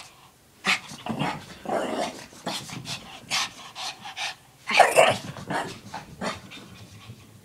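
Shih Tzu play-growling and huffing in many short outbursts while spinning, with the loudest outburst about five seconds in.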